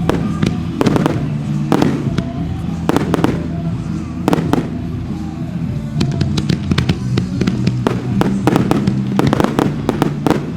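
Fireworks display: shells bursting in rapid, irregular bangs and crackles, many every second, over music with steady low notes.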